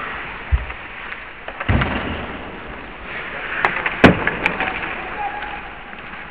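Ice hockey play close to the boards: skates on the ice and sticks clacking, with a few sharp cracks of stick or puck against the boards a little before halfway through and a couple of dull thumps earlier on.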